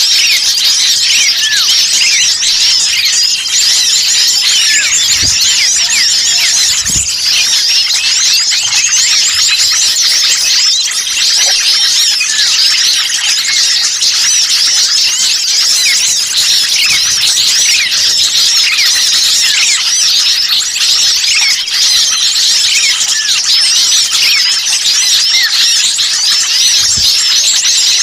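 A dense chorus of many small songbirds chattering at once, rapid high chirps and twitters overlapping without pause, as used in bird-lure (pikat) recordings to draw in wild birds.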